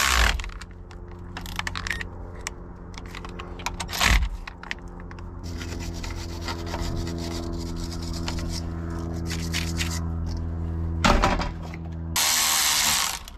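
Hand tools clinking and scraping on the engine as the thermostat housing is bolted up, with sharp metal knocks at the start, about four seconds in and about eleven seconds in, over a steady low hum. Near the end comes a short loud hiss.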